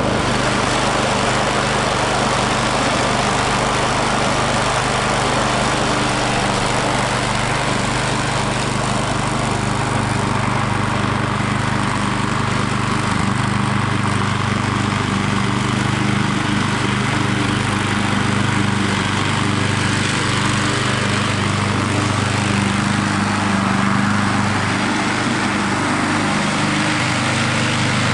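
Walk-behind push lawn mower's small gasoline engine running steadily while cutting grass, its pitch wavering slightly as the load changes.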